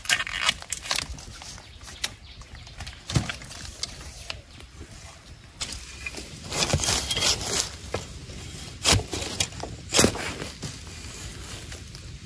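Irregular rustling of leaves and undergrowth with scattered sharp snaps and clicks, the loudest cracks a few seconds apart.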